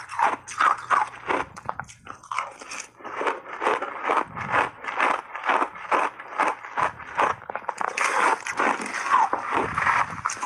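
Close-miked crunching of refrozen ice chunks coated in matcha and milk powder: rapid, irregular crisp crunches, several a second, as the ice is bitten and chewed.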